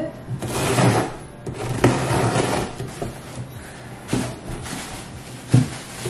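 Cardboard shipping box being opened by hand: two long tearing, scraping noises in the first half, then a couple of sharp cardboard knocks as the flaps are handled.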